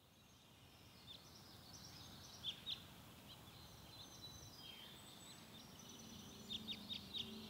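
Faint outdoor ambience with songbirds chirping, fading in from silence; the short chirps are scattered at first and come thicker near the end. A low steady hum joins about six seconds in.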